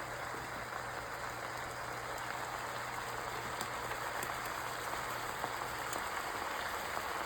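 Spinach sautéing in olive oil in a frying pan, a steady sizzle.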